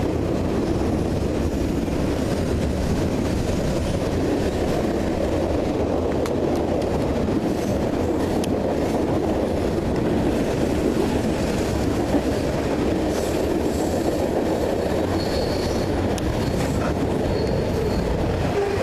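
Freight train rolling past on CSX track, a steady rumble of cars on the rails, with a thin high wheel squeal a few times near the end.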